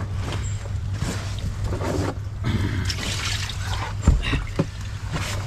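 Water trickling and splashing off a wet carp sling as it is handled in the bottom of a small boat, with a knock on the hull about four seconds in.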